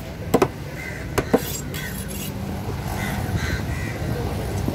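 A machete blade chopping fish against a wooden table: four sharp chops in two quick pairs within the first second and a half, over a steady low rumble of street traffic.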